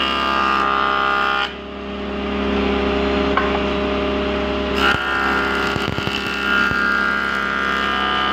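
Woodworking jointer running steadily, with a high-pitched whine while a block of wood is passed over its cutterhead. The cutting whine drops off about a second and a half in, leaving the motor's hum, and returns about five seconds in.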